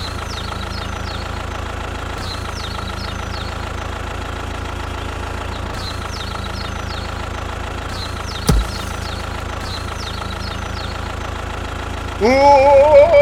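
A small engine idling with a steady hum. A single sharp click comes about eight and a half seconds in, and a short high-pitched voice-like exclamation begins near the end.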